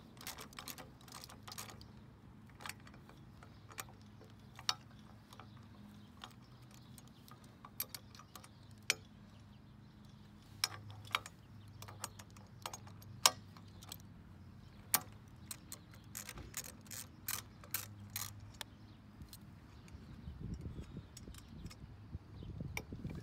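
Hand ratchet wrench with a 13 mm socket clicking in short, irregular runs as the nut is backed off the hinge bolt of a cantilever patio umbrella. The clicks come thicker and sharper in the second half.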